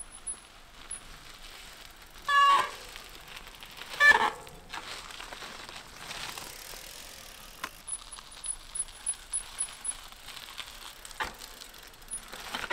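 Mountain bike ridden at walking pace over low stone drop-offs under controlled braking: two short, loud squeals of the brakes about two and four seconds in, the second the louder. Later comes a run of light ticks and clicks from the bike, about three a second.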